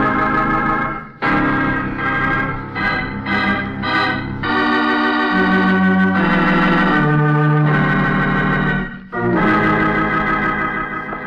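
Organ music bridge between radio-drama scenes: a dramatic sting of short chord stabs, then held chords, ending on a long chord that fades away. It marks the change of scene.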